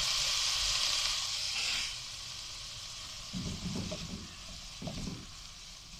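Spaghetti and vegetables sizzling in a hot wok just after soy sauce goes in, the hiss loud at first and dying down about two seconds in. Then a wooden spatula tosses and scrapes the noodles around the wok in a few uneven strokes.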